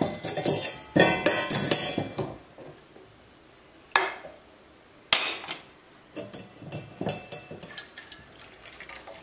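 Metal kitchenware clattering and clinking: a stainless steel pot and a wire-mesh tea strainer being set down on a gas stove, with a quick run of ringing knocks at first, single sharp knocks about four and five seconds in, then lighter clinks.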